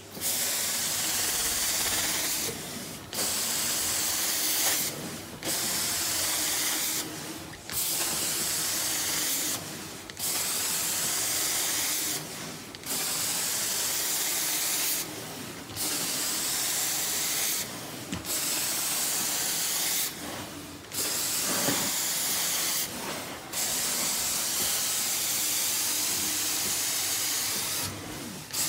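Carpet extraction wand running on carpet: a steady rushing hiss of spray and suction, with brief dips about every two to three seconds.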